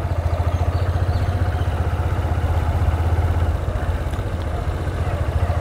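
Honda Hornet's single-cylinder motorcycle engine running steadily at low revs.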